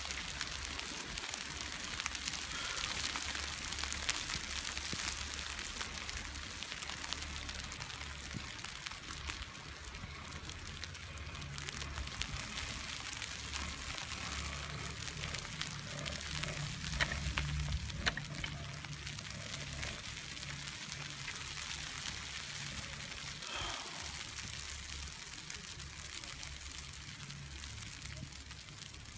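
Steady hiss of wind and falling snow on a phone microphone during an open chairlift ride. A low hum from the lift comes in about ten seconds in and is strongest around the middle.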